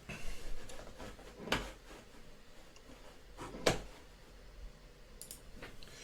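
A few faint, short clicks over quiet room tone: one right at the start, one about a second and a half in, and the sharpest near four seconds in.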